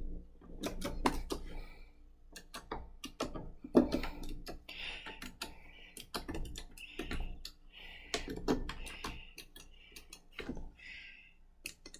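A run of small, irregular clicks and taps, several a second at times, with a few soft hissing sounds in between.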